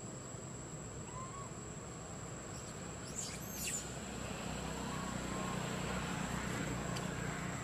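Outdoor ambience: a steady high-pitched insect drone, with a few short bird chirps about three to four seconds in and a low rumble that swells in the second half.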